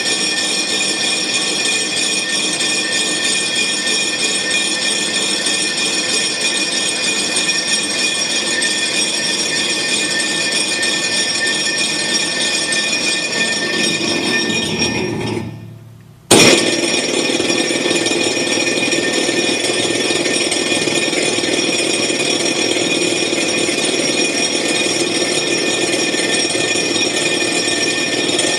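Welding positioner's electric drive motor and gearbox running with a steady whine; about halfway through it winds down, falling in pitch, and stops, then restarts with a sharp click and runs on.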